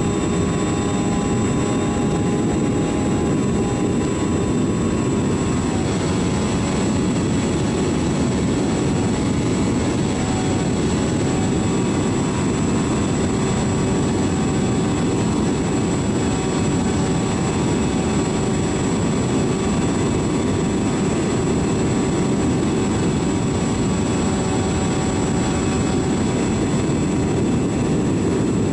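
Motor and propeller of an RC model airplane running steadily in flight, recorded from its nose-mounted camera, with a dense rushing of wind over the camera. The pitch of the motor whine shifts slightly about six seconds in.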